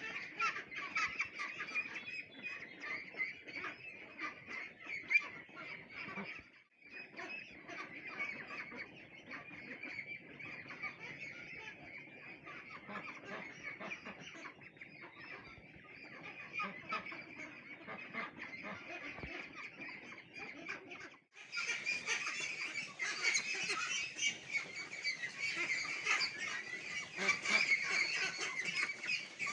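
A large flock of 29-day-old hybrid ducklings calling all at once in a dense, continuous chatter of overlapping calls, growing louder about three-quarters of the way through.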